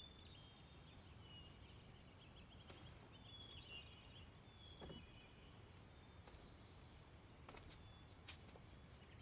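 Quiet outdoor ambience: small birds chirping faintly and repeatedly over a low steady background rumble, with a few soft clicks.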